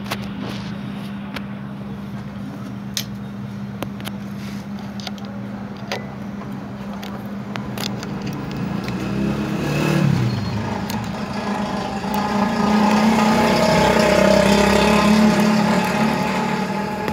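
A screwdriver clicks and scrapes on the rotary hook's screws of a Jack automatic sewing machine as they are tightened, a few separate small clicks, over a steady low hum. A louder rumbling noise swells up near the end.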